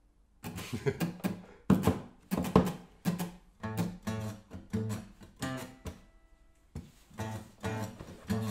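Two acoustic guitars strumming and picking chords together as an instrumental song intro, with a short break about six seconds in before the playing resumes.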